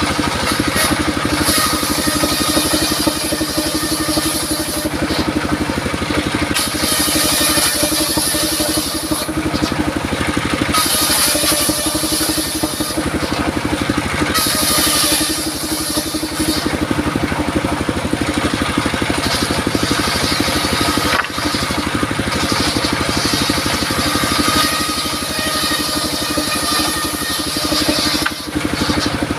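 Circular saw running steadily and cutting durian wood, a high hiss of the blade in the wood breaking off briefly about three times between cuts.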